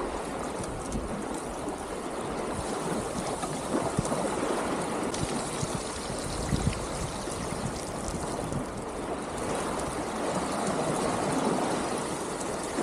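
Small Baltic Sea waves washing onto a sandy beach: a steady rush of water that swells a little now and then.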